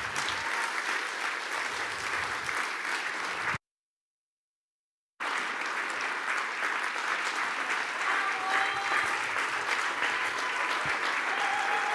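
A hall full of people clapping steadily in a standing ovation. The sound cuts out completely for about a second and a half, about four seconds in, then the applause carries on.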